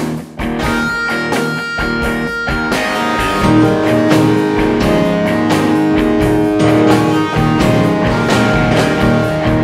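Rock-style music with guitar and a steady beat.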